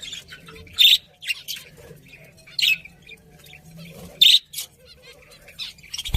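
Budgerigars chirping and chattering in quick short notes, with three loud sharp chirps standing out at about one, two and a half and four seconds in.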